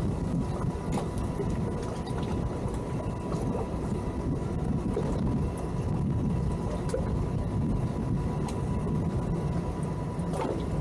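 A boat engine idling with a steady low rumble, with a few faint ticks over it.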